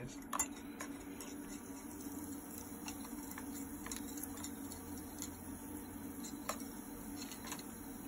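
Coca-Cola fizzing with scattered small crackles and clicks as welder current passes through it in a titanium anodising bath, over a steady low electrical hum from the stick welder.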